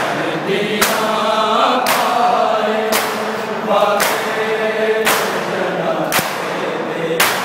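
Matam: a crowd of men chanting a mourning lament (nauha) together while striking their bare chests with open palms in unison, one sharp slap about every second.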